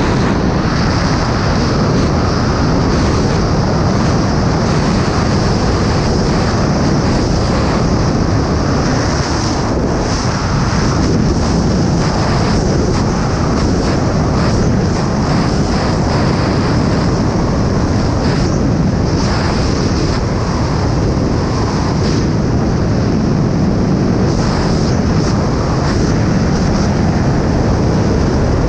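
Steady, loud rush of airflow over a wingsuit pilot in freefall, buffeting the microphone as wind noise, with a slight flutter.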